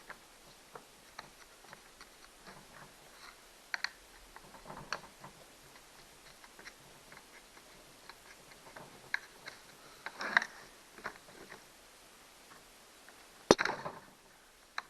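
Small clicks, taps and scrapes of a tool prying at parts of a Stihl 029 chainsaw, with a louder cluster about ten seconds in and a single sharp snap about thirteen and a half seconds in, the loudest sound, as a part pops open.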